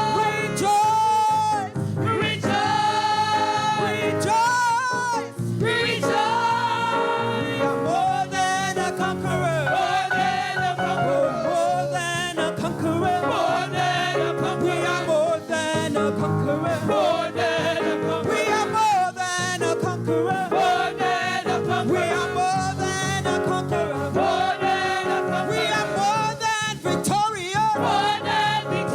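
Live gospel praise music: singing over a church band's instruments and percussion.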